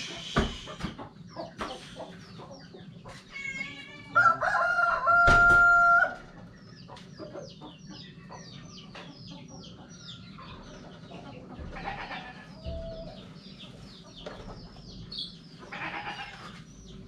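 A rooster crows once, loud and drawn out, about four seconds in, with hens clucking and many short high chirps around it.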